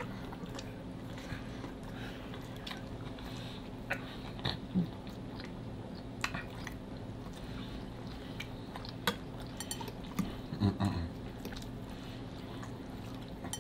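Close-miked chewing and eating of creamy chicken and shrimp fettuccine Alfredo, with scattered small clicks of mouth and utensil sounds over a steady low hum.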